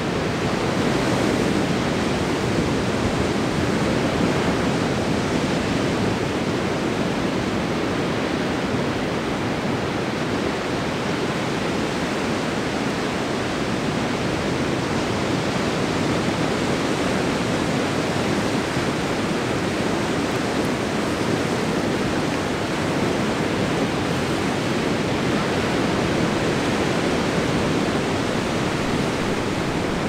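Ocean surf on a sandy beach: a continuous rush of breaking and washing waves, swelling gently in loudness now and then.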